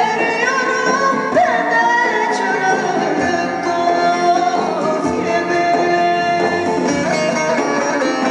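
Turkish folk song played live: a woman singing held, wavering notes over a bağlama and a Korg arranger keyboard.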